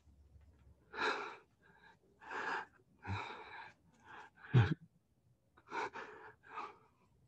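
A person's heavy, gasping breaths, about one a second, with a short low thud about four and a half seconds in.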